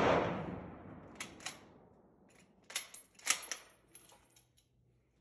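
A 1940 K98 Mauser's 8mm rifle shot rings out and fades under the covered firing line. Then come several sharp metallic clacks a second or two apart as the bolt is worked to eject the spent case and chamber the next round.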